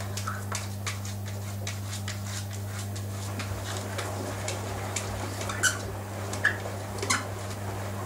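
Kitten pawing inside a washing machine's metal drum: irregular light taps and clicks of claws on the drum, with a few louder taps from about five and a half seconds in, over a steady low hum.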